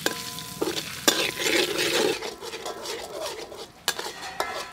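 A metal spatula stirring and scraping chopped garlic around a steel wok, with sharp clinks against the metal, while the garlic sizzles in soybean oil. The stirring is loudest from about one to two seconds in.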